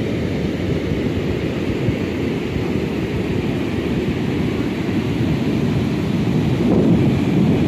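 Steady rushing of river water pouring over a rocky riffle, a continuous deep roar.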